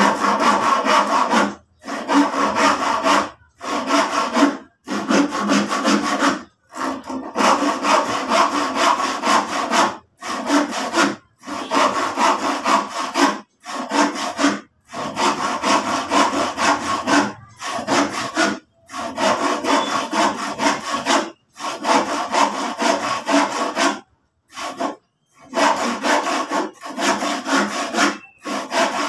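Handsaw cutting through wood: a continuous rasp of rapid back-and-forth strokes, broken every second or two by very short gaps.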